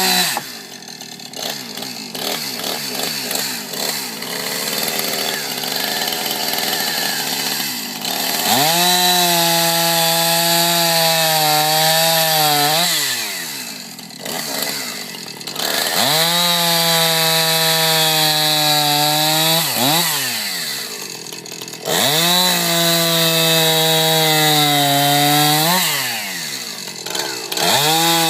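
Gasoline chainsaw run at high revs in three spells of several seconds each, each time falling back to a lower, rougher running in between. The first several seconds are a lower, less steady running.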